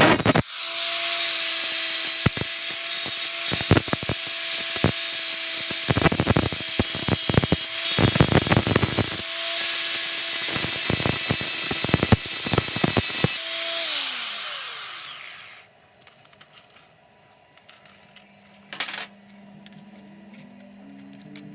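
Electric hand grinder running on steel, a steady hum under loud hissing and scraping. It is switched off about 14 seconds in, its pitch falling as it winds down, and the rest is quiet.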